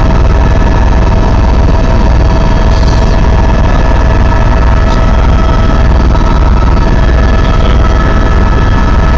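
Helicopter in flight heard from inside the cabin: a loud, steady drone of engine and rotor, with several constant whining tones over a low, pulsing rotor beat.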